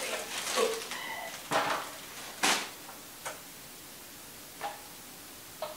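Plastic packaging crinkling and knocks of handling as a boxed exhaust fan is unwrapped and moved, then a few isolated short taps about a second apart near the end.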